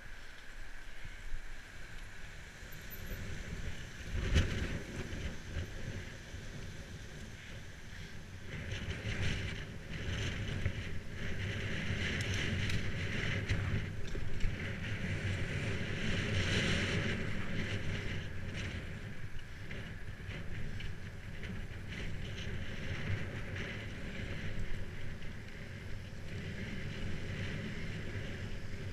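Bicycle riding over a rough dirt and grass towpath: steady tyre rumble, rattling and short knocks from bumps, with a harder knock about four seconds in. Wind buffets the microphone.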